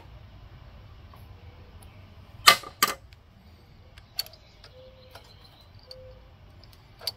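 Sharp metal clicks of a box-end wrench and Torx driver on the rocker-arm locknut and adjuster of a Briggs & Stratton 550EX overhead-valve engine, as the locknut is loosened to set the valve clearance. Two clicks come close together about two and a half seconds in, another about four seconds in, and one more near the end.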